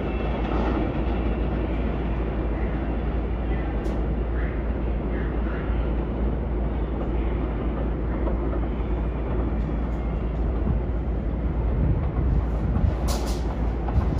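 An NYC subway L train running: a steady rumble of wheels on track, with a few sharp clicks near the end.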